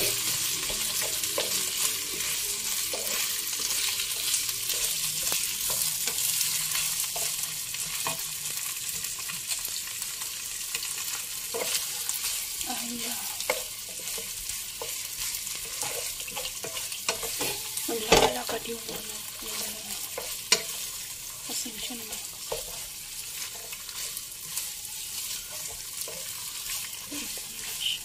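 Chicken wings sizzling in oil in a non-stick wok, with a wooden spatula stirring and scraping them and clicking against the pan; one louder knock about two-thirds of the way through.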